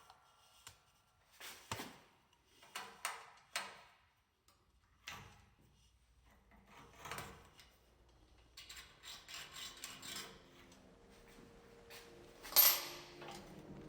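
Handling noises at a workbench: scattered clicks, knocks and rubbing of parts, then a quick run of small clicks, and near the end one louder sharp, hissy noise.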